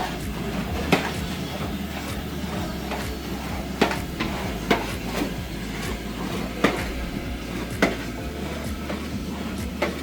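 Pork chicharrones frying in a large pot of lard with a steady hiss. A paddle stirring them knocks sharply against the pot every second or two.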